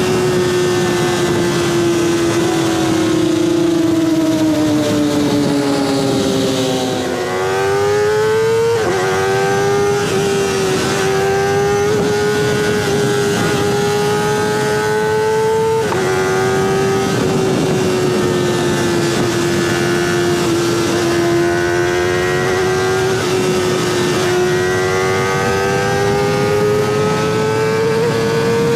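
Kawasaki ZX25R's high-revving inline-four engine through a Sphere stainless-steel full-system exhaust, under way. The pitch sinks slowly as the bike eases off, then climbs sharply about seven seconds in. It drops suddenly around sixteen seconds at a gear change, then rises steadily again.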